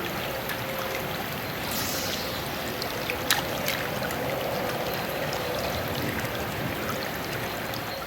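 River water running steadily, with a few faint clicks.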